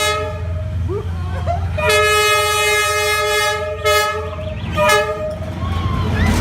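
Train horn sounding over the steady low rumble of a moving train: a short toot, then a long blast of about two seconds, then another short toot.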